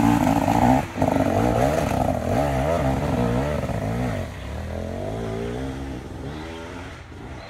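Dirt bike engine revving up and down as the rider works the throttle, with a brief cut about a second in, then fading over the last few seconds.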